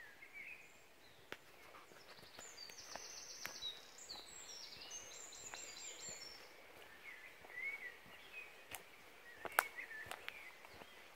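Birds singing: one bird gives a long, rapid, high trilling song lasting about four seconds, starting a couple of seconds in, over softer chirping from others. A few sharp clicks break in, the loudest near the end.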